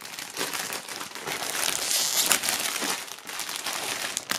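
Thin clear plastic film bag crinkling and crackling as a folded T-shirt is pulled out of it, with a sharp snap of the plastic near the end.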